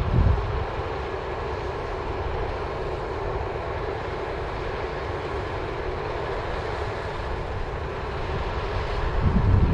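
Combine harvester running steadily under load while harvesting barley: an even machine drone. Wind rumbles on the microphone near the end.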